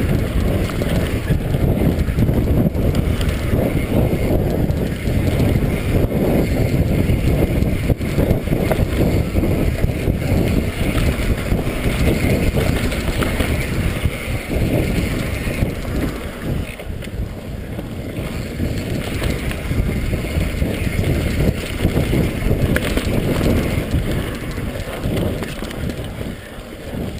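Mountain bike riding fast down dirt singletrack, heard from a helmet-mounted camera: wind rushing over the microphone and tyre noise, with constant rattling and knocking of the bike over roots and bumps.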